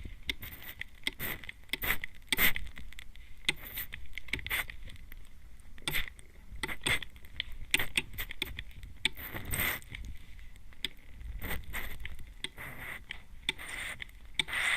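Trigger spray bottle spritzing a fine mist onto a microphone's ear, in short hissing sprays at about two a second, with a longer spray near the middle.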